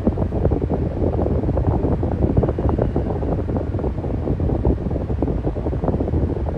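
Electric fan running steadily: a low rush of air that flutters rapidly, with the airflow buffeting the microphone.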